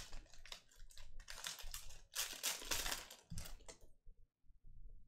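Trading cards being slid and shuffled through in the hands: a run of short scraping rustles, the longest a little after two seconds in, stopping about four seconds in.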